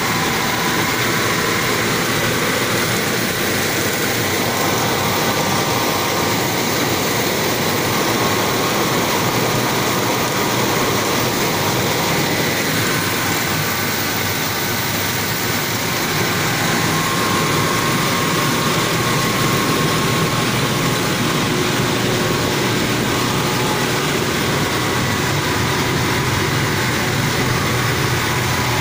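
Rice mill running steadily as it processes sun-dried paddy into milled rice: a continuous loud mechanical din with a faint steady whine and no breaks.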